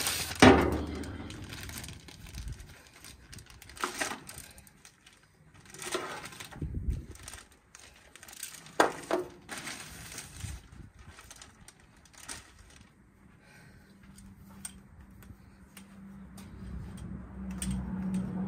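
A clear plastic bag rustling and crinkling as it is handled and unfolded, with scattered clicks and knocks. A low steady hum comes in over the last few seconds.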